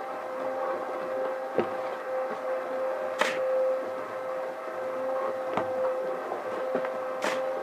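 Small electric drum cement mixer running with a steady hum. A steel shovel scrapes into a pile of sand and dumps loads into the drum: four short, sharp scrapes, the second and fourth the loudest.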